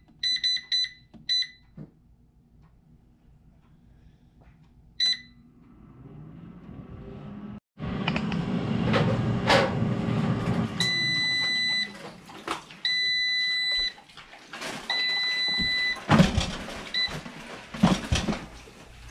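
PowerXL digital air fryer: about five short touch-panel beeps as its buttons are pressed, and one more a few seconds later. After it switches off, a loud steady whoosh from its fan, then its finished-cooking alarm sounds three long beeps and a short one. A couple of clunks follow as the basket is pulled out.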